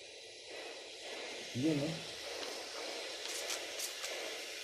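A 2600-watt steam iron at maximum heat hissing steadily as it starts to push out steam and water, with a few faint high crackles about three seconds in. The steam shows that it is heating again after the cold solder joints on its circuit board were resoldered.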